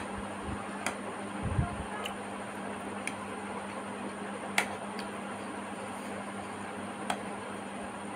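A metal fork clicking against a ceramic plate while noodles are gathered: about five sharp single clicks, a second or more apart, the loudest near the middle, over a steady hiss and a low hum.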